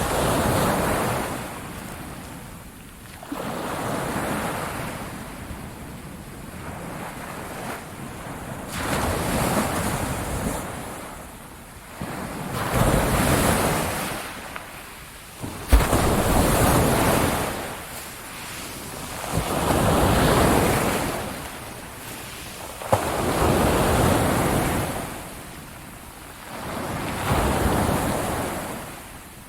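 Ocean waves breaking and washing up a beach, each surge swelling and fading roughly every three to four seconds, about eight in all. Two brief sharp thumps come in the middle stretch.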